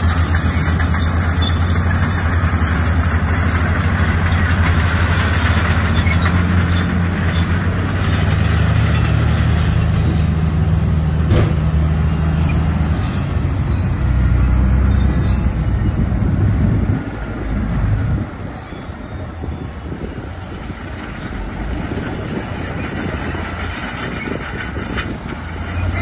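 Heavy diesel engine of earthmoving machinery running steadily with a deep, even note, dropping to a quieter, rougher run about two-thirds of the way through.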